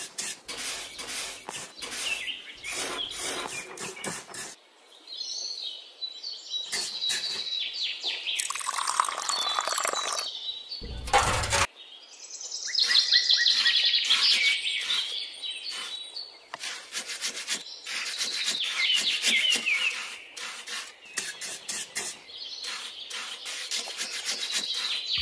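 Small birds chirping and twittering over and over, with the light scraping and clicking of a small spatula stirring damp soil. A short rush of noise comes about eleven seconds in.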